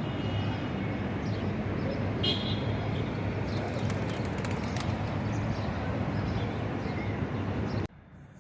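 Wild birds chirping faintly over a steady outdoor background rumble, with a brief high twittering about two seconds in; the whole sound drops away abruptly near the end.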